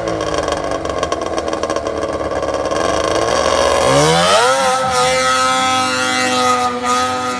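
Snowmobile engine running steadily at low revs, then revving sharply up about four seconds in and holding high revs at full throttle as the sled skims across open water.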